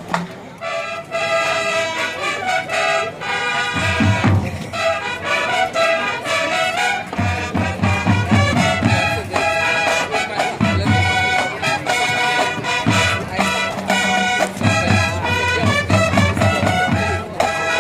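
Fanfare band playing: the brass fanfares sound a sustained tune starting about half a second in, with low drum beats coming and going underneath.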